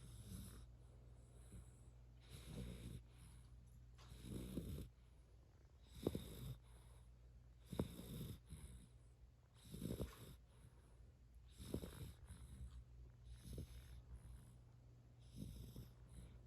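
Three-month-old yellow Labrador Retriever puppy snoring faintly in its sleep, one snore with each breath about every two seconds.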